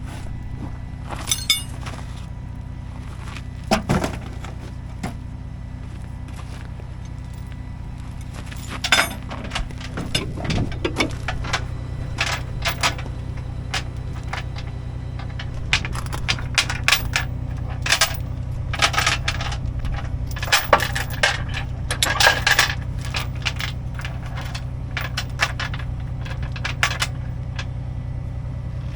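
A truck engine running steadily, with scattered sharp clinks and rattles over it, coming thickest through the middle.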